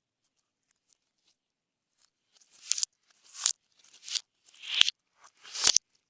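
Slime being squeezed and folded by hand: five wet, crackling squelches, each swelling and ending in a sharp pop as trapped air bursts, starting about two seconds in.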